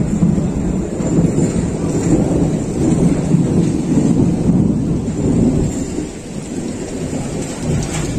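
Torrential rain in a strong stormy wind: a loud, unbroken rushing noise with a deep rumble, easing slightly about six seconds in.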